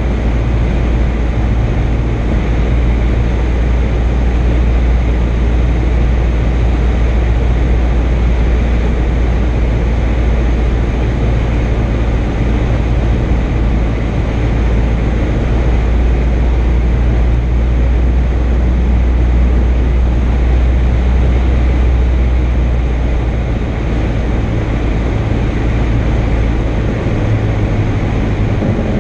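Robin DR400-180's four-cylinder Lycoming O-360 engine and propeller droning steadily inside the cabin on final approach, with a haze of airflow noise. Near the end the deep part of the engine note drops away and the sound shifts.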